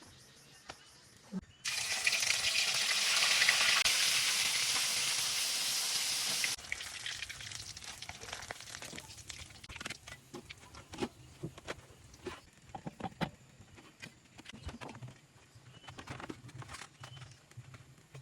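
Water running or pouring in a steady rush for about five seconds, starting and stopping suddenly, followed by scattered light clicks and knocks of kitchen utensils.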